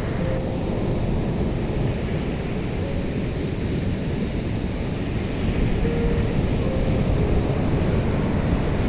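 Ocean surf: a steady, deep wash of breaking waves, growing a little louder past the middle.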